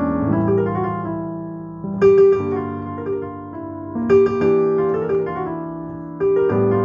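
Electronic keyboard played with a piano sound: a slow melody over held chords, with a louder new chord struck about every two seconds and left to fade.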